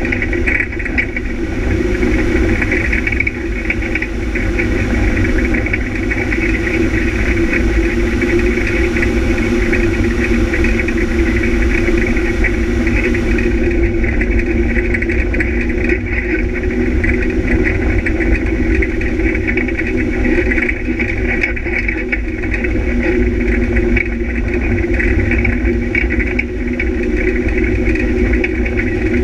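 Off-road vehicle's engine running steadily under way, heard from an onboard camera on the vehicle, with no big changes in revs.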